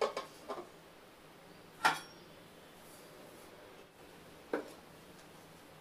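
Metal cookware being handled: a few short clinks and knocks of a pressure cooker and steel bowl, the loudest about two seconds in and a softer one near the end.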